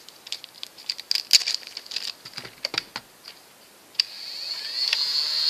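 Clicks and crinkles of foam darts and a plastic bag being handled. About four seconds in, a click, and a Nerf Sonic Barricade's flywheel motor, on its stock three AA batteries, spins up with a high whine that grows louder. Its sound is quiet next to a modded blaster's.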